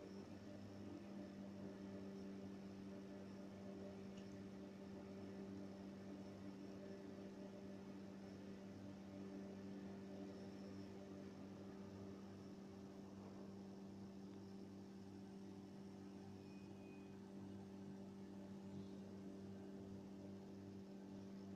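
Faint, steady electrical hum made of a few constant low tones, starting abruptly.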